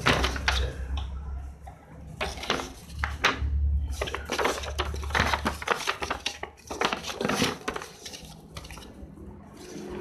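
Stiff printed paper rustling and flapping as a warranty card and instruction sheets are handled, in irregular crisp crackles with a few sharper snaps.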